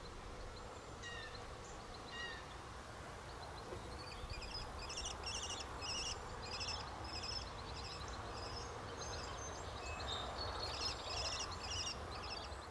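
Birds calling in repeated short bursts of quick, high chattering notes, scattered at first and then several bursts in a row from about four seconds in, over a steady low background rumble.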